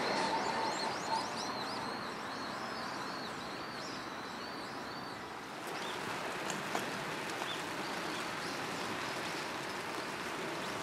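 An electric commuter train fading away as it leaves, with a bird singing a quick run of repeated rising-and-falling whistled notes over it for about the first five seconds. After that, a steady outdoor hiss with a few scattered bird chirps.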